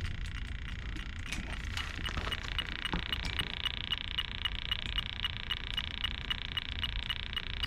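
Electronic refrigerant leak detector beeping in an even, quick rhythm, about three beeps a second, from about two seconds in. The beeping signals refrigerant picked up at the heat pump's coil: a leak.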